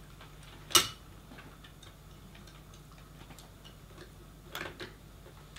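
Clicks and taps on a laptop as it is operated, with one loud sharp click about a second in and a few fainter ones later, over a steady low hum.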